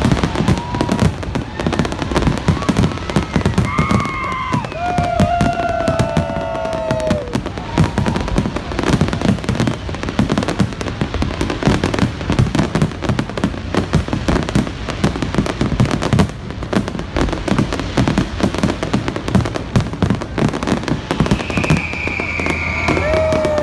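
Aerial fireworks going off in a dense, continuous run of bangs and crackles, with a few falling tones heard over them.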